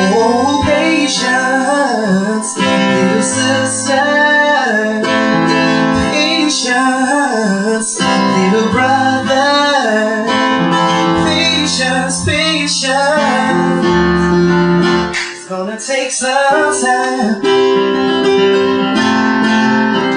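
Music: a voice singing wordless runs and sustained notes over guitar accompaniment.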